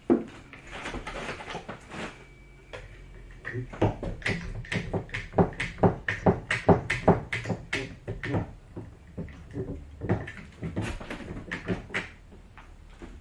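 Tongue-and-groove pine ceiling board being knocked and shoved up into place by hand: quick irregular runs of wooden knocks and thumps with pauses between. The board is binding on fibreglass insulation sagging below the joists, which she blames for the struggle.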